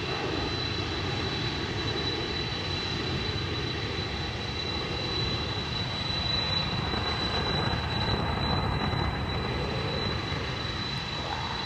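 Boeing 747-400 freighter jet engines, a steady rumble with a thin high whine, swelling slightly partway through.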